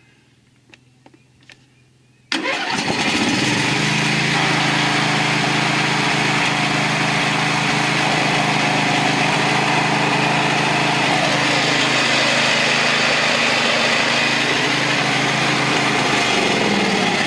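Craftsman DYT 4000 riding mower's 24-horsepower engine starting about two seconds in, catching at once, then running steadily. A few faint clicks come before it starts.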